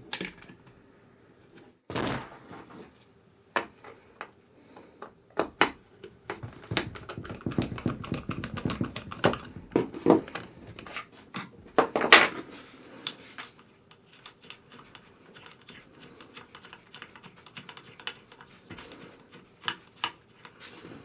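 Irregular clicks, taps and knocks of a Ruger 10/22 rifle being handled as its stock is taken off, with a sharp knock about 2 s in, a dense run of clicks through the middle and the loudest knock about 12 s in.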